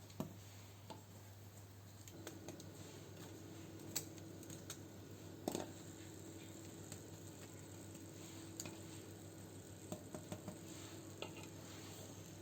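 Scattered light clinks and taps of a utensil against cookware during cooking, over a steady low hum.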